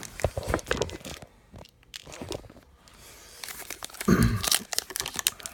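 Crinkling and tearing of a foil baseball-card pack wrapper being opened by hand, with scattered crackles that grow denser and louder near the end.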